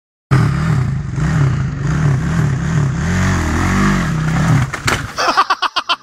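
Dirt bike engine revving up and down as the bike rides down over rocks, then stopping about four and a half seconds in, with a sharp knock near five seconds as the bike crashes and goes down on its side. A fast run of short pulses follows.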